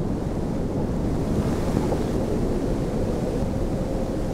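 Water sound effect of a steady, deep wash of sea waves, with no breaks or single splashes.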